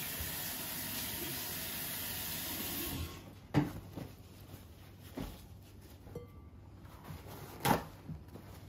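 Kitchen tap running into a sink while hands are washed, shut off about three seconds in; afterwards two sharp knocks, one shortly after the water stops and one near the end.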